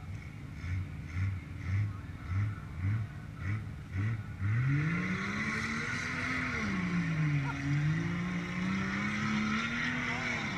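Pickup truck engine under load during a mud-pit recovery. It pulses about every half second at first, then a little over four seconds in revs up and holds high, its pitch rising and falling as the truck strains to pull the stuck truck out of the mud.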